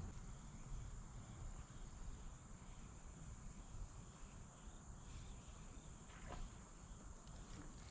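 Insects chirring steadily in a thin, high-pitched drone, faint, over a low background rumble.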